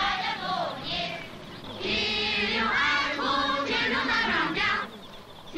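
A group of schoolchildren singing together as they march, the many young voices louder from about two seconds in.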